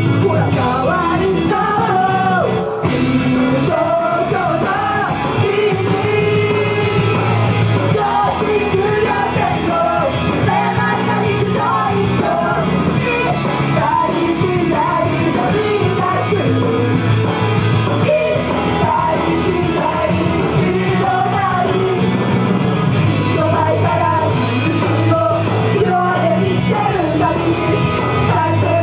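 Idol group of young women singing live into microphones over loud rock-style pop music, with some shouted vocal parts.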